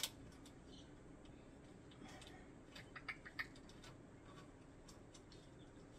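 Faint clicks and scrapes of a round power-cord connector being lined up on its notch and its locking nut twisted onto a tumbler heat press's socket: one sharper click at the start, then a cluster of light clicks around three seconds in.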